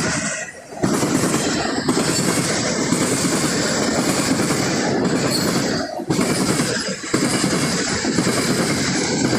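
Freight cars of a manifest train rolling past, their wheels clattering over the rails. The noise drops briefly near the start and twice more about two-thirds of the way through.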